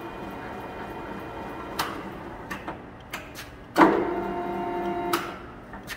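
1980 Takisawa TSL-1000 D gear-head engine lathe running, its headstock gears giving a steady whine. A clunk about two seconds in; then about four seconds in the spindle lever is thrown with a loud clunk and the gear whine grows much louder for about a second before another clunk drops it back.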